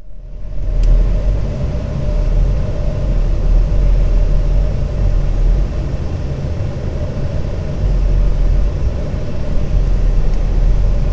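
A car driving over a dirt track, heard from the vehicle itself: a steady engine and road rumble.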